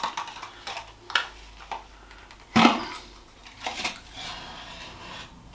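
A cardboard packing tube being handled and opened, with a plastic-wrapped part slid out of it: scattered knocks and rustles, the sharpest knock about two and a half seconds in.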